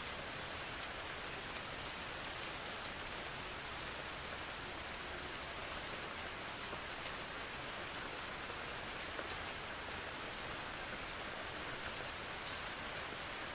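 Steady rain falling, an even, continuous hiss with a few faint individual drop ticks; no thunder.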